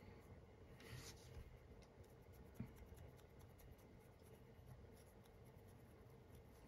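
Faint scratching of a stiff flat brush's bristles dry-brushing paint over a small model figure, with one stroke standing out about a second in and a light tick about two and a half seconds in.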